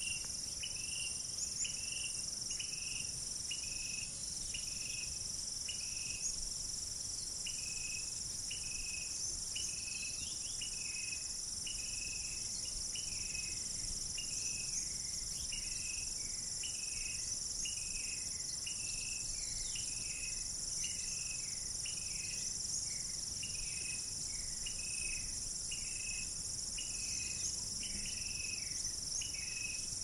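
Daytime insect chorus of cicadas and crickets: a steady high shrill drone, with a short chirp repeating about one and a half times a second. A few faint bird calls and light wind lie underneath.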